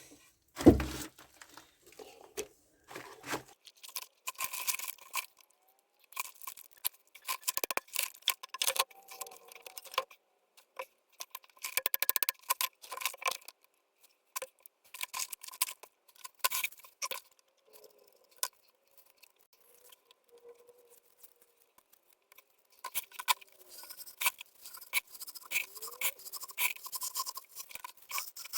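Irregular scraping and scratching from hand work with tools and materials, with one heavy thump about a second in.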